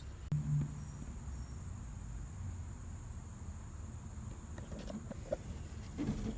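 A steady high-pitched insect drone over a low rumble, with a dull bump about half a second in and a few light knocks near the end.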